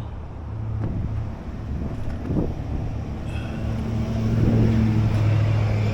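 A motor engine running with a steady low rumble, growing louder about four seconds in as it comes closer.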